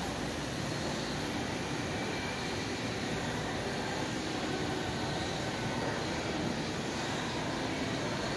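Steady rushing background noise inside a large, mostly empty shopping mall, even and unchanging, with no distinct footsteps or other events standing out.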